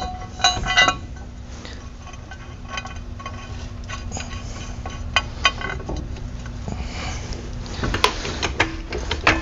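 Hand tools and small metal parts clinking and ticking against each other in irregular light clicks, with a steady low hum underneath that stops about two thirds of the way through.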